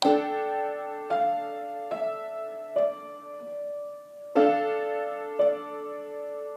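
Piano playing a slow run of six chords, each struck and left ringing, with a longer pause before the fifth.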